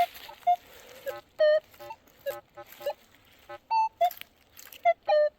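Metal detector giving a string of short, irregular beeps as its coil sweeps over a buried target. Most beeps are on one mid tone, with a single higher beep about two-thirds of the way through. The reading is like the one that Lincoln wheat cents gave.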